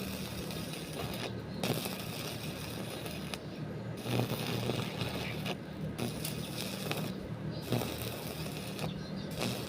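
Repeated scraping strokes, each about one and a half to two seconds long with short breaks between, over a steady low hum.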